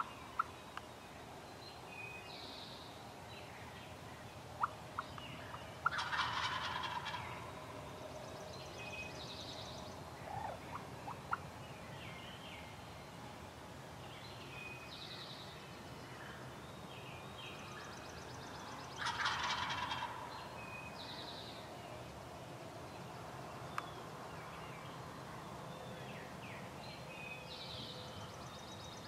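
Wild turkey gobbler gobbling twice, about six seconds in and again near twenty seconds, each a rapid rattling call about a second and a half long. Faint high chirps of small birds sound between the gobbles.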